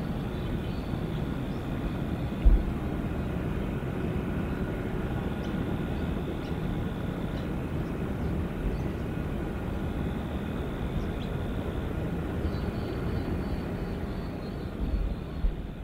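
Steady rumble of distant jet aircraft engines across an airfield, with faint high whine tones. Wind buffets the microphone with a thump about two and a half seconds in and again near the end.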